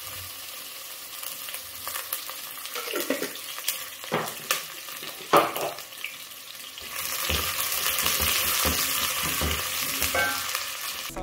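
Food sizzling in hot oil in a cooking pan while it is stirred, with a few sharp clinks of a utensil against the pan in the middle. The sizzle gets louder about seven seconds in.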